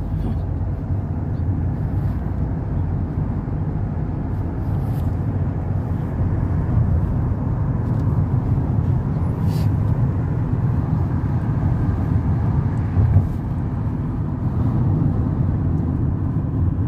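Steady low road rumble of a moving car, with a small bump in level about two-thirds of the way through.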